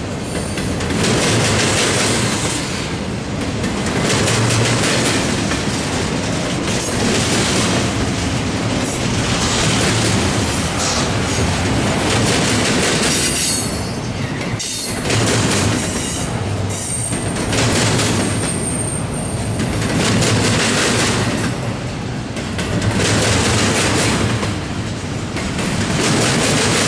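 Railroad cars of a passing train rolling by, the wheels clattering over the rails in repeating swells, with brief high wheel squeal about halfway through.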